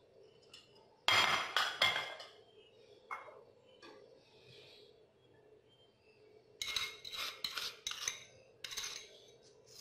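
A spoon clinking and scraping against small glass and ceramic bowls as ingredients are spooned out: a quick cluster of clinks about a second in, a single clink about three seconds in, and a longer run of clinks and scrapes in the last third.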